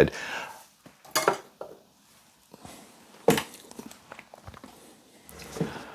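A few light knocks and clatters of small objects being handled on a desk, the sharpest about a second in and again about three seconds in.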